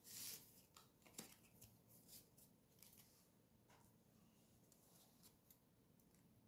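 Faint handling of tarot cards on a table: a soft sliding swish right at the start, then scattered light clicks and taps as cards are touched and the deck is picked up.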